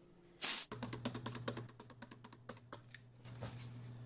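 Computer keyboard typing: a quick run of key clicks for about two seconds, over a low steady hum. A short loud burst of noise about half a second in comes before it.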